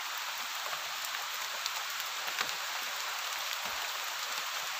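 Rain falling on riverside foliage and the river's surface: an even hiss with scattered small ticks of drops.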